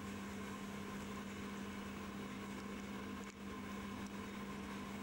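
A steady low hum with constant background hiss, unchanging throughout, with one brief dip about three seconds in.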